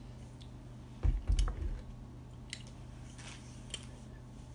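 Plastic water bottle being handled and its cap twisted, with a cluster of dull knocks about a second in and a few light clicks and crackles after.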